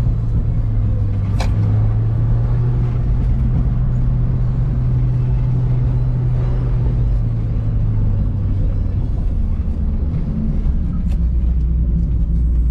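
Mazda MX-5 Miata's engine droning steadily inside the cabin under a layer of road and tyre noise while driving; about nine seconds in the engine note drops to a lower pitch. A brief click is heard about a second and a half in.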